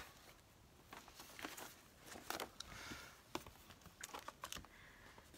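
Faint handling of record album jackets and paper sleeves: scattered light taps and clicks, with a soft rustle of cardboard or paper about two and a half seconds in.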